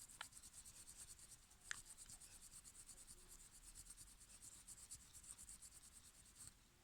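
Faint, quick, even rubbing strokes, a decal being scrubbed off a die-cast toy car body, stopping near the end, with a couple of small sharp ticks early on.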